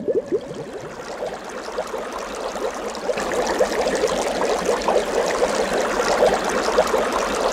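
Underwater bubbling: a steady stream of small air bubbles gurgling and popping, growing a little louder over the first few seconds.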